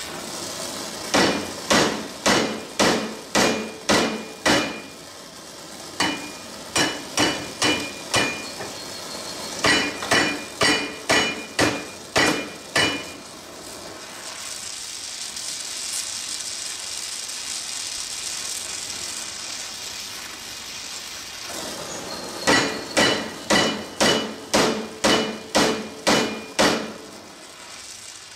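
Hammer blows on steel in four bursts of several strikes each, about two a second, each ringing briefly, knocking at a seized lawn tractor steering wheel to free it from its shaft. Between the bursts a torch flame hisses steadily as the hub is heated.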